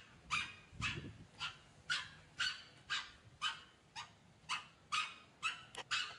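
Young macaque giving short, repeated cries, about two a second, while it is massaged.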